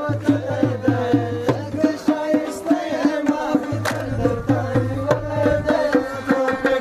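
Pashto folk music for the attan dance: a dhol drum beating a fast, steady rhythm under a rabab, a plucked lute, playing the melody.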